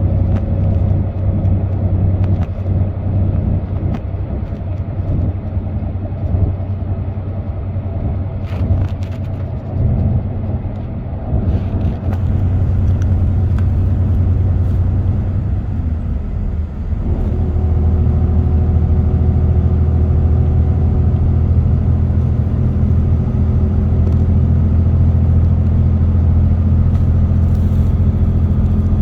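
Car driving at expressway speed: steady engine drone and tyre and road rumble, growing louder and more even about two-thirds of the way through.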